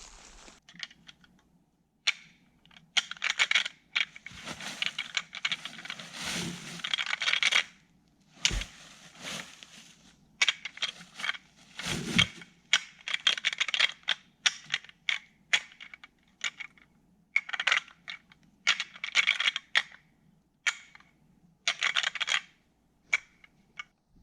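Rattling antlers clashed and ground together to imitate two bucks fighting, a call for drawing in a rutting buck. Rapid clacking and grinding comes in bursts of a second or two with short pauses between, with a couple of dull thumps in the middle.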